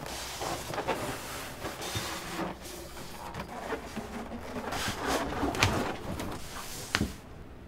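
A rolled leather hide rubbing and scraping as it is pulled off a shelf and then unrolled across a work table, with a few sharp knocks, the loudest about five and a half and seven seconds in.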